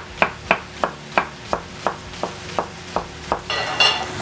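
Chef's knife slicing a shallot on a wooden cutting board: a steady run of sharp knocks, about three a second. Near the end the knocks stop and a brief, higher ringing sound follows.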